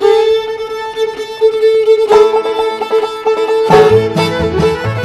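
Bluegrass band starting a tune: a fiddle opens on a long held note, more notes join about two seconds in, and the rest of the band (banjo, guitar, bass) comes in near the end.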